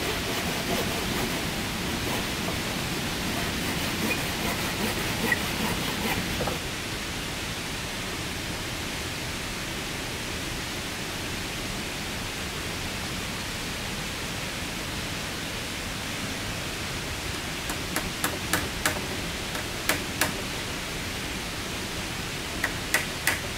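A steady rushing noise that drops in level suddenly about six and a half seconds in. Near the end come sharp knocks, a few at a time and then about two a second.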